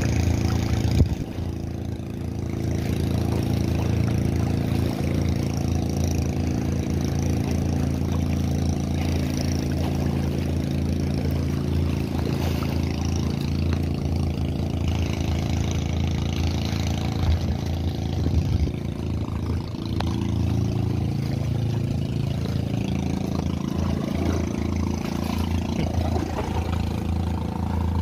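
Boat engine running steadily, its pitch shifting a little in the later part.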